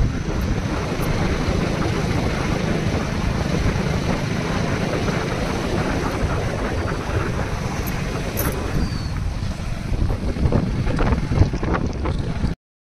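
Heavy wind buffeting a phone microphone while riding pillion on a moving motorcycle, a dense steady rumble with no clear engine note. It cuts off suddenly near the end.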